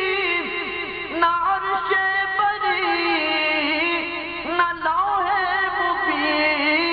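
A male voice singing a naat in long held, wavering notes with sliding ornaments between lines of the verse.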